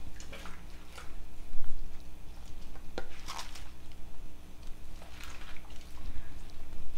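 Handfuls of fresh spinach dropped into a saucepan of hot water: leaves rustling and water splashing in a few separate bursts, with a sharp click from the pan about three seconds in. Near the end a hand presses the leaves down into the water.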